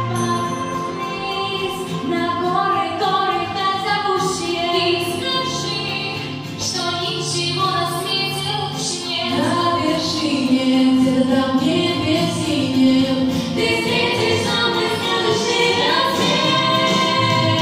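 Several female voices singing together over an instrumental backing track, getting a little louder about ten seconds in.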